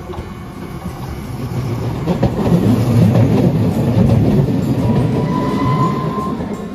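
Hiroden Green Mover low-floor articulated tram passing close by, its wheels rumbling on the rails. The rumble swells as it nears and is loudest in the middle. About five seconds in there is a brief high squeal as it takes the curve.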